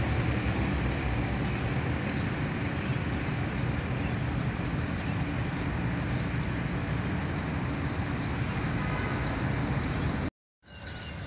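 Steady street traffic noise with a low rumble, cutting off abruptly about ten seconds in. After a moment of silence, a quieter outdoor ambience follows with faint high chirps.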